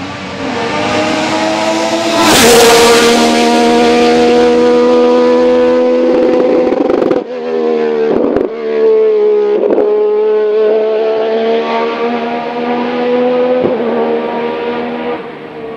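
Alfa Romeo 2.5 L V6 racing engine, unrestricted, in the Juno Racing CH2 hillclimb prototype, running at high revs as the car climbs. Its note holds high and is broken by quick gear changes, the first with a sharp crack about two seconds in, then others around seven and fourteen seconds. It fades near the end.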